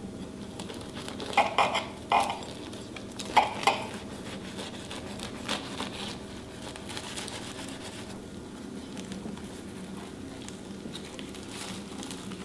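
Knife cutting through the crisp baked pastry crust of a pie: a few sharp crunches in the first four seconds, then fainter crackling as the cut goes on.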